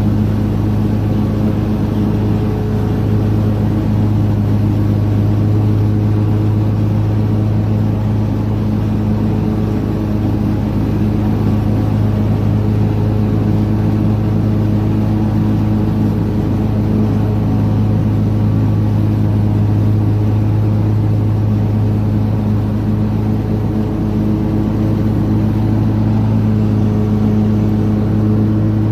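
Lawn mower engine running at a steady, constant speed with an even hum, no revving or changes.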